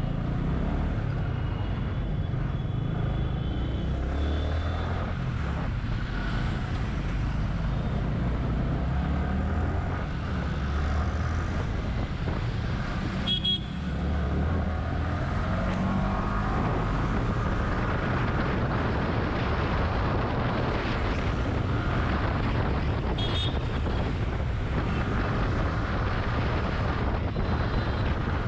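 Motorcycle engine running under way in city traffic, its note rising and falling as the rider speeds up and slows, with road and traffic noise around it. A short sharp sound cuts in about 13 seconds in, and another near 23 seconds.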